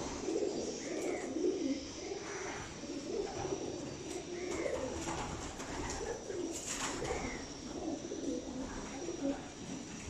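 A cage full of homing pigeons cooing, many overlapping coos without a break. A brief rattle of the wire cage about two-thirds of the way in.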